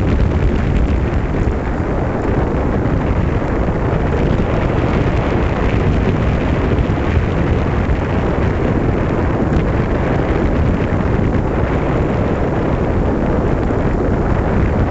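Steady, loud wind noise buffeting the microphone of a camera on a bicycle riding downhill, a heavy low rumble.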